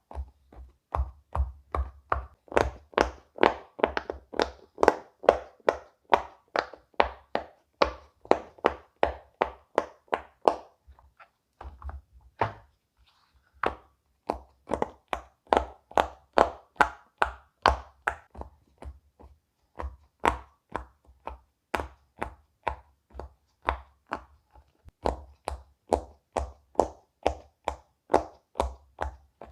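Bubbles of a silicone pop-it fidget toy being pressed one after another, each giving a short pop, about three a second, with a brief pause near the middle.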